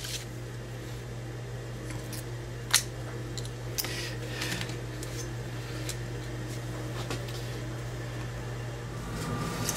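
Plastic cover of a small single pole double throw relay being worked off and the relay handled: a few small sharp plastic clicks, the loudest about three seconds in, over a steady low hum.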